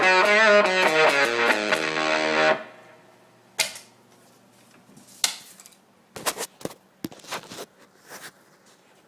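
Electric guitar played through a Devil Fuzz pedal: a run of distorted notes that cuts off about two and a half seconds in. After that there is a faint hum with several brief sharp clicks and scrapes.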